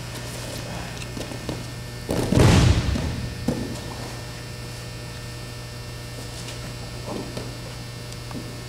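Two wrestlers' bodies hitting a wrestling mat in a heavy thud about two seconds in, followed by a few smaller knocks of movement on the mat. A steady electrical hum runs underneath.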